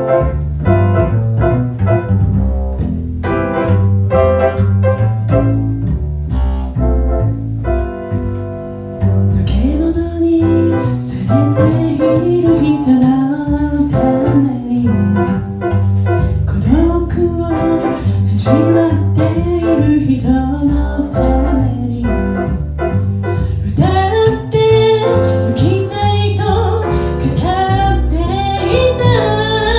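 Piano and double bass playing a song together, with a wavering melody line entering above them about ten seconds in.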